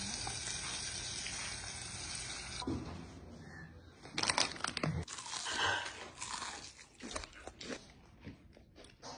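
Hot oil sizzling steadily in a deep fryer as fried crappie fillets are lifted out. After that, crisp crunching bites and chewing of the fried fish, loudest about four to five seconds in.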